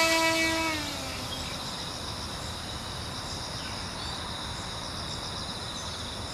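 A homemade RC plane's electric motor and propeller whine at a steady high pitch for about the first second, then drop in pitch and fade away. After that, insects chirr steadily.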